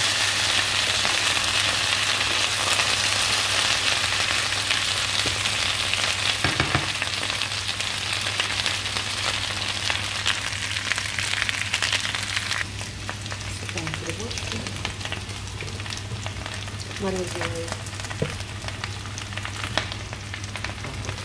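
Sliced potatoes sizzling as they fry in hot oil in a pan, stirred with a spatula, with one knock about six and a half seconds in. A little past halfway the sizzle suddenly drops to a quieter level.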